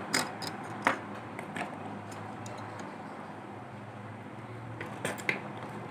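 Small tools clicking and tapping on a mobile phone's parts during a charging-port repair: a few separate sharp ticks, over a steady low electrical hum.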